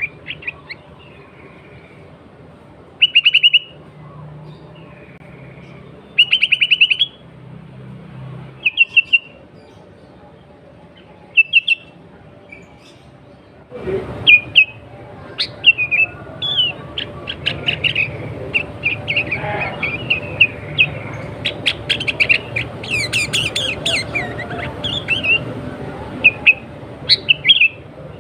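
Sooty-headed bulbul calling, with short bright chirping phrases every two or three seconds. From about halfway the calls come thick and fast in a busy run of chirps.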